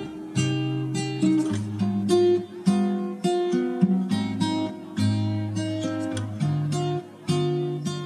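Background music: an acoustic guitar picking a melody of plucked notes over a bass line.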